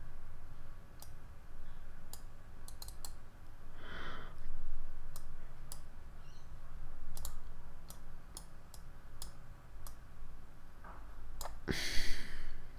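Scattered, irregular computer mouse clicks while editing points on a curve in software. There is a short rush of noise about four seconds in and a louder one near the end.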